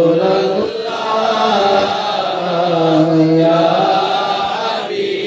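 A man's voice singing a naat unaccompanied into a microphone, drawing out long held notes that slide between pitches, with a brief pause for breath near the end.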